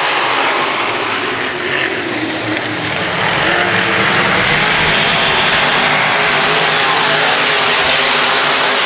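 A field of B-Modified dirt-track race cars running at full throttle, the engine noise swelling about three seconds in as the pack comes by.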